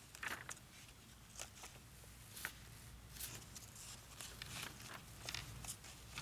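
Faint footsteps and paper rustling, a scatter of soft irregular clicks and rustles over a low steady hum.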